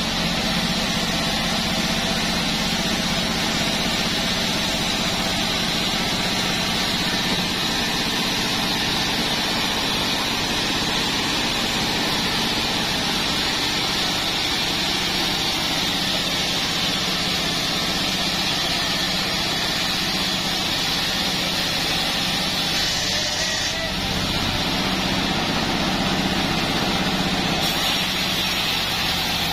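Band sawmill running steadily, its blade turning free between cuts rather than cutting.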